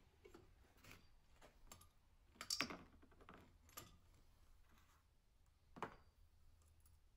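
Faint clicks and clinks of small metal valve-train parts and a valve spring compressor being handled, with two louder clinks, one about two and a half seconds in and one near six seconds.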